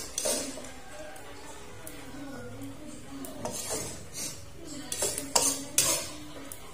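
Metal spatula scraping and clinking against a wok as stir-fried food is scooped out onto a plate. The sharp clinks come at the start, again past halfway, and loudest in a quick run near the end.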